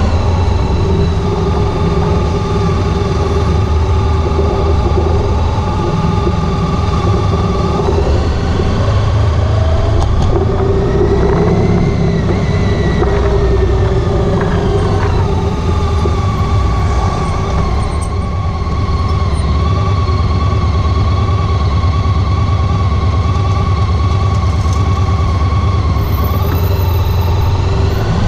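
Honda ST1300 Pan European motorcycle's V4 engine running under way, a steady drone whose pitch shifts up and back down around the middle.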